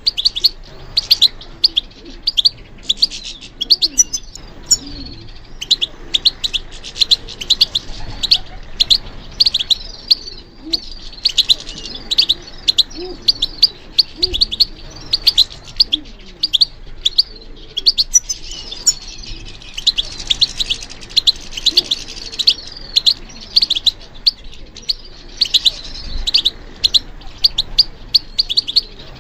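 European goldfinch singing: a fast, unbroken run of short high chirps and twittering trills.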